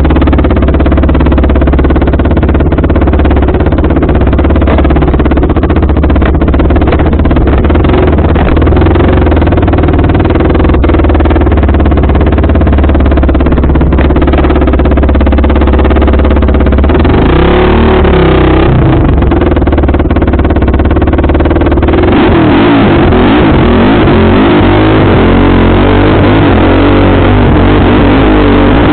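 Off-road motorcycle engine running loud under load on a trail, its pitch rising and falling with the throttle about two-thirds of the way through. In the last several seconds the rush and splash of water joins it as the bike rides through a shallow stream.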